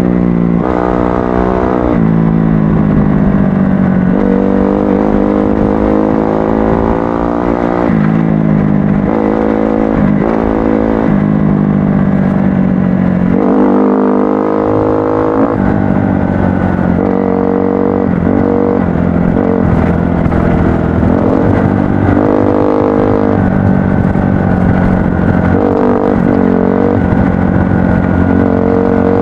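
Kawasaki KX-F four-stroke single-cylinder dirt bike engine being ridden hard, revving up and down. Its pitch climbs and drops back again and again as the throttle is opened and closed.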